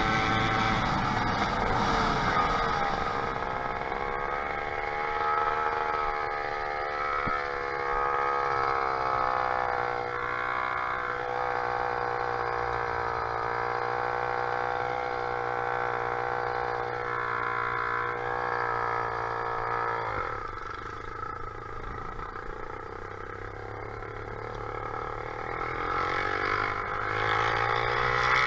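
Motorized bicycle's small engine running under way, its pitch rising and falling with the throttle. It drops to a lower note about twenty seconds in and picks up again near the end.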